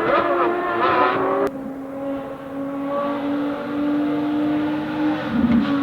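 Ferrari FXX Evo's V12 engine running on track. It is loud with shifting pitch at first; about a second and a half in, it cuts abruptly to a quieter, steady engine note that climbs slowly in pitch, then dips near the end.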